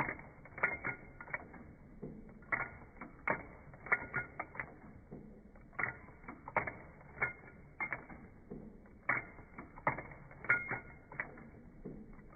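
Sewing machine mechanism clicking and clacking in an uneven, slow rhythm, the clicks often coming in small clusters of two or three.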